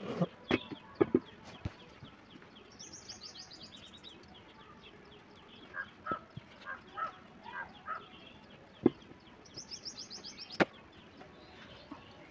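Birds calling: two runs of quick high chirps and a string of short repeated calls around the middle. A few sharp knocks and clatters of steel cooking utensils come in the first two seconds and twice more later.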